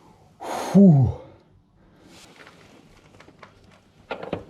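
A man's loud "Фу!" of relief, followed by faint scattered clicks and light taps of metal parts being handled while a motorcycle's rear brake caliper is fitted, with a few sharper clicks near the end.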